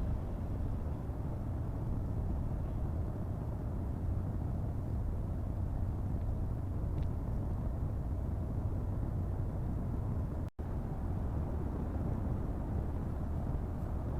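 Steady low rumble of a car driving, road and engine noise, with a brief dropout about ten and a half seconds in.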